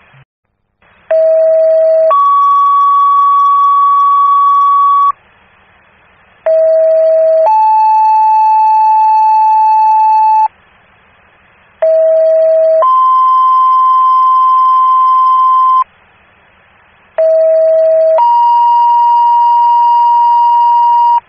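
Fire dispatch two-tone sequential paging tones over the radio: four tone pairs, each a short low tone of about a second stepping up to a longer, higher tone of about three seconds. The second tone is a different pitch in each pair. Radio hiss fills the gaps between pairs. The tones alert fire companies to a new call just before the voice dispatch.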